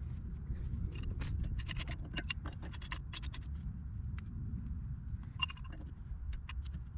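Pipe wrench turning threaded black steel gas pipe into a T fitting: light metal clicks and scrapes in two runs, the first from about one to three and a half seconds in, the second around five and a half to six and a half seconds, over a steady low rumble.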